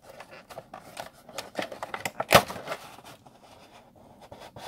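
A cardboard Funko Pop window box being opened and its clear plastic insert slid out. The cardboard and plastic crinkle and click, with one louder knock about two and a half seconds in.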